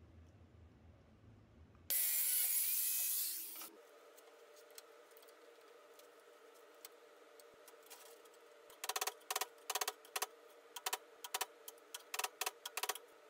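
A quick, irregular run of over a dozen sharp, ringing hammer strikes on a thin steel rod lying on a steel welding table, starting about two-thirds of the way in. Earlier, about two seconds in, a power tool gives a loud rushing burst lasting under two seconds.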